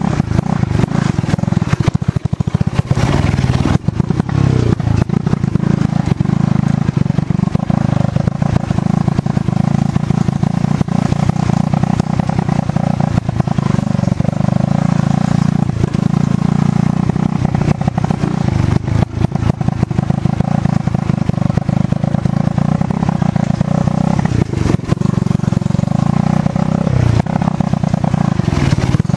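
Small off-road vehicle engine running steadily while riding a bumpy dirt trail, with knocks and rattles from the bumps.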